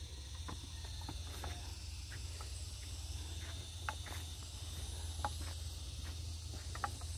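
Steady high-pitched chirring of field insects, over a low steady rumble, with scattered faint clicks and knocks.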